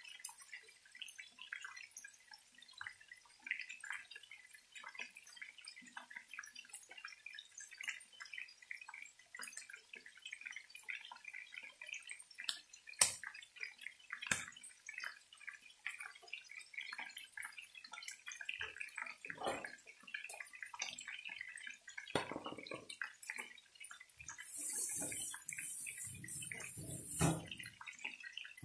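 Chicken pieces shallow-frying in hot oil, sizzling with dense, irregular crackles and pops. There is one sharp pop about halfway, and a louder hiss for about three seconds near the end.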